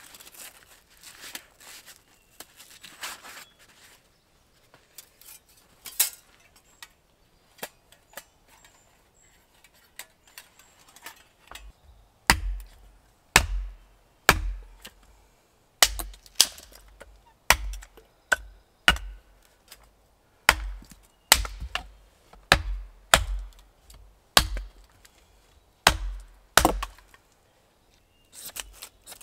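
Hatchet splitting kindling on a wooden chopping block: a run of sharp chops with a dull thud, roughly one a second, starting about a third of the way in. Before that there are only quiet handling clicks and rustles.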